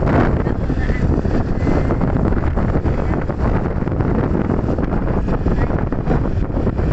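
Strong wind buffeting the microphone, a loud steady rumble.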